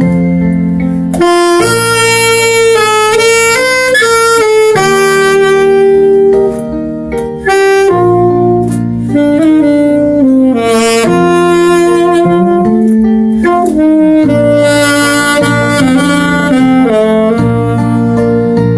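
Alto saxophone playing a slow melody in a dry, unprocessed tone, with held and gliding notes over a steady accompaniment with bass; the line pauses briefly about seven seconds in.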